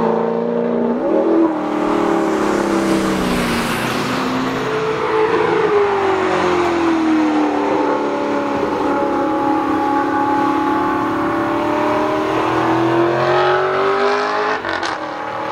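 Alfa Romeo 8C Competizione's 4.7-litre V8 accelerating hard, its exhaust note climbing in pitch, dropping at a gear change about a second and a half in and climbing again. Later the note sweeps down and slowly back up as the car runs past at speed.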